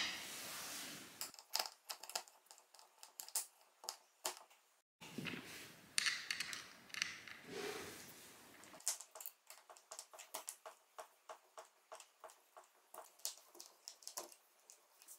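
Screws being turned in by hand with a screwdriver through a metal leg-mounting plate into a particleboard desktop, heard as a run of short clicks a few times a second through the second half. Before that come scattered knocks and clatter of the small hardware being handled.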